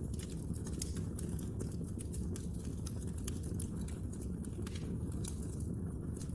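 Wood fire in a fireplace, logs crackling with frequent small, irregular pops over a steady low rumble of the flames.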